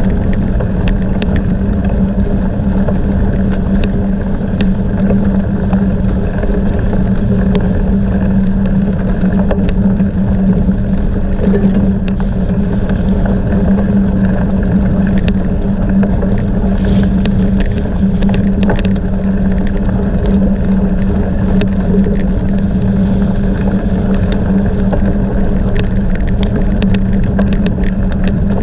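Bicycle riding over rough ground, probably gravel: a steady loud rolling and wind noise with a constant low drone and many small clicks and rattles.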